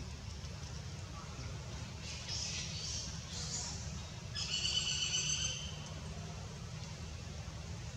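An animal call: short high chirps, then about halfway through one loud, high-pitched call that holds a steady pitch for about a second. A steady low rumble runs underneath.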